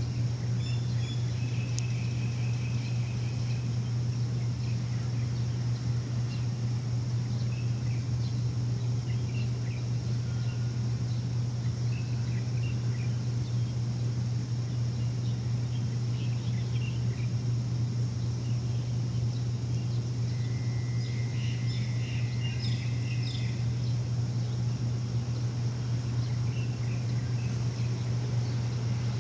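A machine's steady low hum, with birds chirping and trilling over it now and then. Past the two-thirds mark a steady high note holds for about three seconds.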